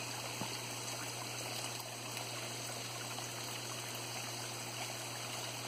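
Water running steadily down a small pump-fed garden pond waterfall, with a steady low hum underneath.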